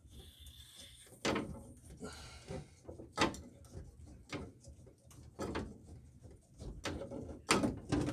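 Irregular clicks and knocks of a close-quarters pipe cutter being closed onto a copper pipe and turned around it to cut it.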